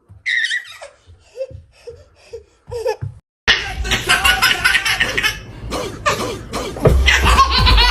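Laughter: a high squeal, then short separate bursts of laughing, then, after an abrupt cut, louder continuous laughter.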